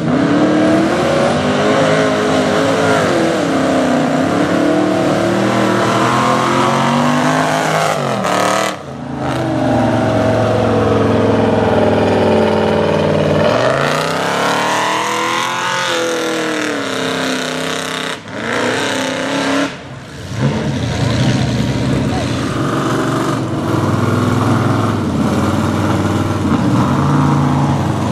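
Mega mud truck's big engine revving hard as it churns through a mud pit, the pitch repeatedly climbing and dropping with the throttle. The sound breaks off briefly three times.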